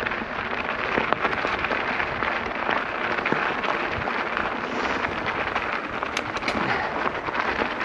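Specialized Turbo Levo e-mountain bike climbing a loose, rocky 4WD track: dense crackling and crunching of the knobby tyres over gravel and stones, with the bike rattling over the bumps.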